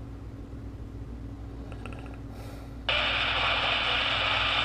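Retekess V111 shortwave radio auto-scanning: its audio mutes while it searches, leaving only a low hum. About three seconds in, it locks onto a weak station and a steady hiss of static comes up at once.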